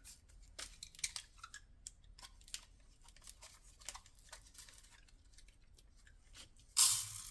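Paper and cardboard of a 6-inch firework canister shell being cut and pulled apart to get at the lift charge: scattered small clicks and scrapes, then a louder rustling burst near the end.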